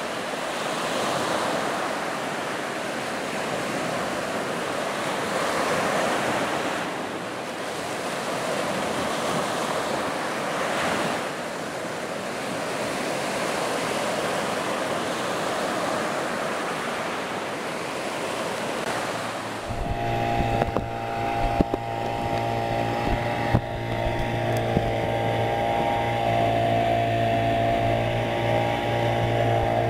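Surf breaking and washing through the shallows. About two-thirds through it cuts abruptly to an inflatable boat's outboard motor running steadily under way, with water rushing past the hull and a few knocks.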